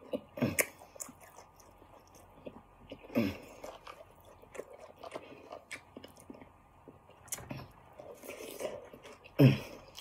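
A person chewing and biting food close to the microphone, with irregular wet mouth clicks and smacks and three short hums, about half a second in, at about three seconds and near the end.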